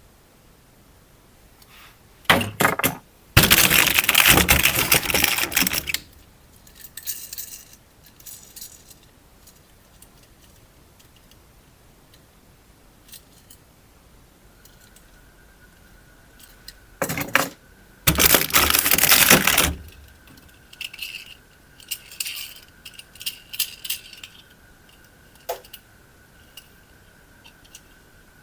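Rattling and clattering of handled hard objects in two loud bursts of a few seconds each, with lighter rattles between and after. A faint steady high tone comes in about halfway through.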